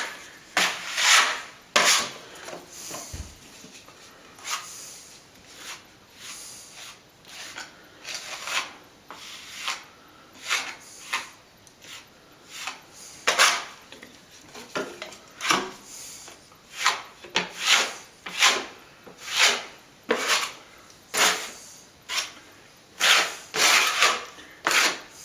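Repeated scraping strokes of a hard scraper spreading the third coat of fine white stopping plaster over the wall, roughly one stroke a second, some much louder than others.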